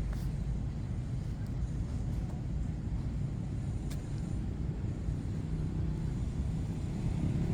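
Steady low rumble of street traffic, with a single sharp click about four seconds in.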